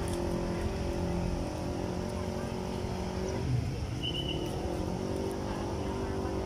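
Motor vehicle engine running with a steady hum, its pitch dipping and then climbing back a little past halfway.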